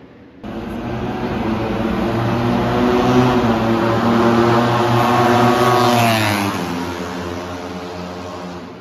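A Moto3 race bike's 250 cc single-cylinder four-stroke engine at full throttle on a flying lap, passing at speed. It cuts in about half a second in, grows louder as it approaches, drops sharply in pitch as it goes by about six seconds in, then fades.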